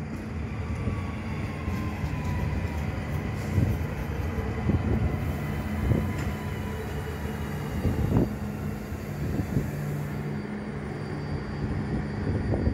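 Koleje Mazowieckie electric multiple unit rolling along the platform: a steady low motor hum with a faint whine falling slightly in pitch, and wheels knocking over the rail joints several times.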